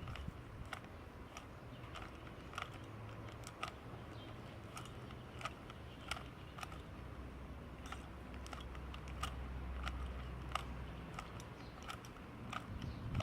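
Plastic Rubik's Cube layers being twisted by hand, a run of irregular clicks and rattles, a few a second, while the last layer's corners are turned into place, over a low steady hum.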